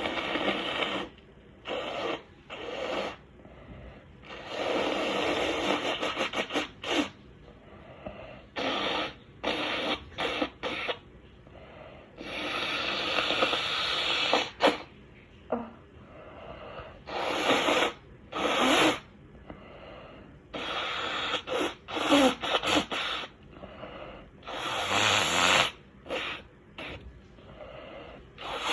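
A person blowing a mucus-filled nose over and over, the nose left snotty by a bout of sneezing: long, hard blows lasting one to three seconds alternate with short, sharp ones.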